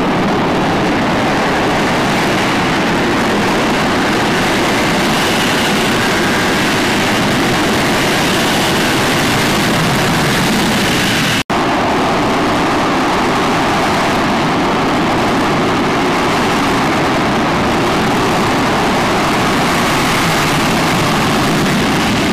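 F-35B Lightning II's jet engine and lift fan running at hover power during a vertical landing: a loud, steady roar with a faint whine on top. It breaks off for an instant about halfway through.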